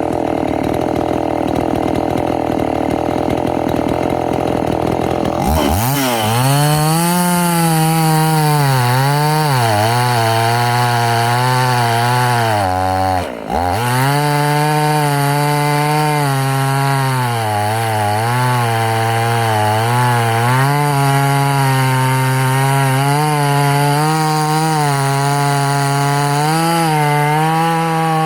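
After a few seconds of rushing noise, a Husqvarna 50 Rancher's two-stroke chainsaw engine comes in clearly at high revs. Its pitch sags and recovers again and again as the chain bogs in wood, with a brief dip about halfway through.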